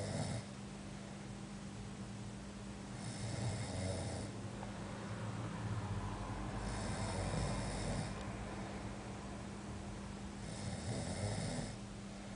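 Snoring in slow, regular breaths, a snore about every three and a half seconds, over a steady low hum.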